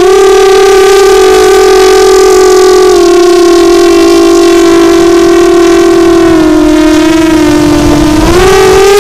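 ImmersionRC Vortex racing quadcopter's brushless motors and propellers whining at a loud, steady high pitch, heard close up from the onboard camera. The pitch steps down slightly about three seconds in, sags lower near the end, then glides back up.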